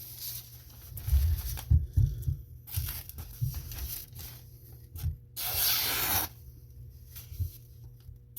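Handling noise: low knocks and rustling with a rough tearing rasp lasting under a second about five and a half seconds in.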